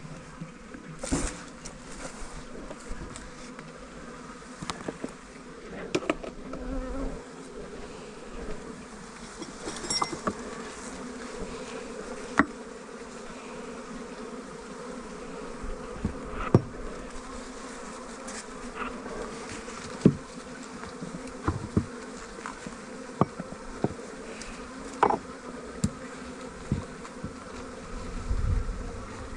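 Honeybees of a shaken-out colony buzzing in a steady hum as they fly around the hive, with brief sharp ticks now and then.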